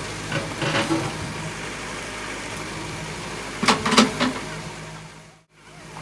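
Backhoe loader's diesel engine running steadily, with a cluster of sharp knocks about four seconds in. The sound drops out briefly near the end.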